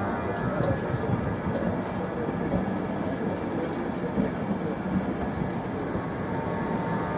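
LNER Mark 4 passenger coaches rolling past, a steady rumble of wheels on rail with a few faint clicks.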